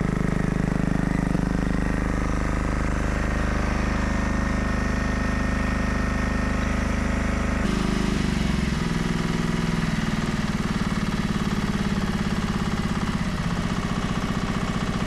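UHI10P mini excavator's diesel engine running steadily on a fresh battery, its note shifting about halfway through.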